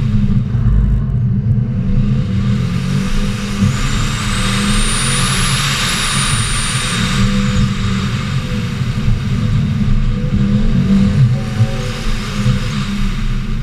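2015 Subaru WRX STI's turbocharged 2.5-litre flat-four engine running hard through an autocross run, with a continuous low drone and rushing road and wind noise. About four seconds in, a high thin whistle rises, then falls away around seven seconds while the rushing noise swells and eases with it.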